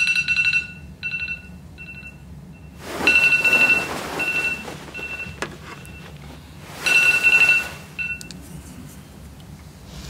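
Smartphone alarm going off in repeated electronic beeps, which stop about eight seconds in.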